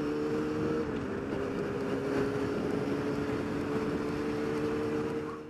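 Motorcycle engine running at a steady cruise, heard from the rider's seat with wind rushing past, its pitch dropping slightly about a second in. The sound fades out at the very end.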